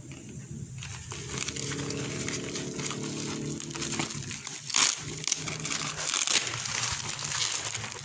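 Parcel's plastic and paper wrapping being crinkled and torn off by hand, with sharper crackles about five and six seconds in.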